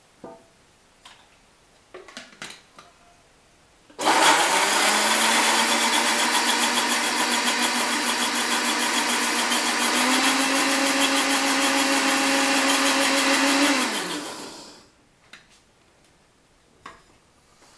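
Imusa countertop blender starting abruptly and running steadily for about ten seconds, blending cucumber and aloe vera with water into a smoothie. Its pitch steps up slightly midway, then it is switched off and winds down. A few light clicks of the jar and lid come before it starts and after it stops.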